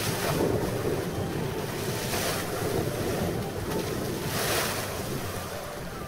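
An elephant splashing and churning water in a shallow river, over the steady rush of the current. The splashes come as three surges about two seconds apart.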